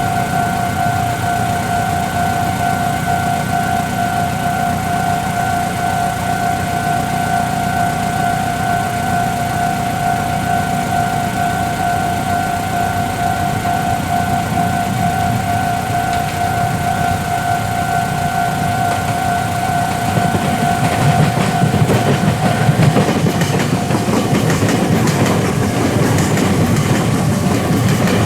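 Level-crossing warning bell ringing steadily as a Meitetsu electric train approaches. About twenty seconds in, the train's rumble builds and the bell's tone drops out under it, with wheel noise on the rails near the end.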